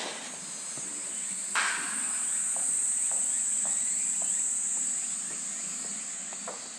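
Cicadas shrilling in a steady high chorus that swells about a second and a half in and eases toward the end. Faint footsteps tick along underneath, and a short rush of noise comes about a second and a half in.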